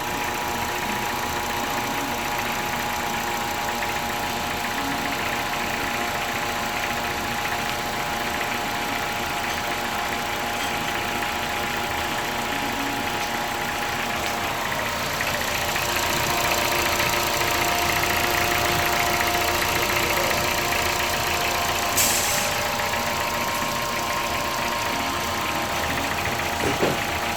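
Honda car engine idling steadily. It runs a little louder for several seconds starting about halfway, and there is a brief sharp click near the end.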